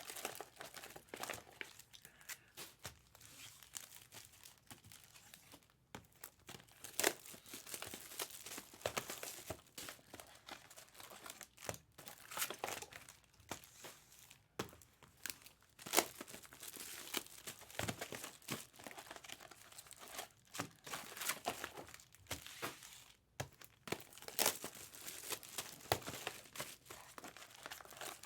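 Foil wrappers of Topps Chrome Cosmic baseball card packs crinkling and tearing as the packs are ripped open, in an irregular run of sharp crackles.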